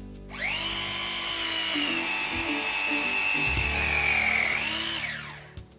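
Electric power tool motor whining up to speed, running steadily for about five seconds with a slight drop in pitch as it takes load, then winding down.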